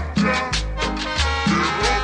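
Latin dance music playing through a sound system, an instrumental passage with a bass line and regular percussion.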